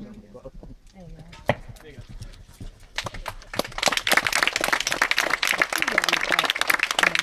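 Spectators applauding, the clapping breaking out about three seconds in and carrying on loudly. Before it come faint voices and a single sharp knock.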